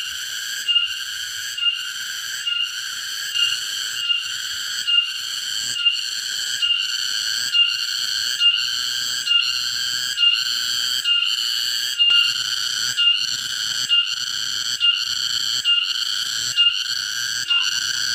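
Cicada singing: a loud, shrill, whistle-like song that pulses evenly a little more than once a second, each pulse opening with a sharp accent.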